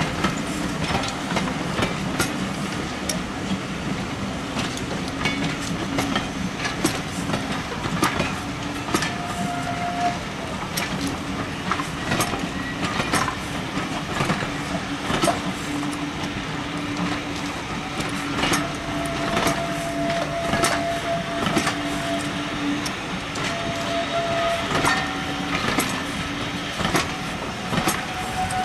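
Heritage railway passenger coaches rolling past, their wheels clicking over the rail joints again and again over a steady rumble. A thin steady tone sounds now and then, held for a few seconds at a time.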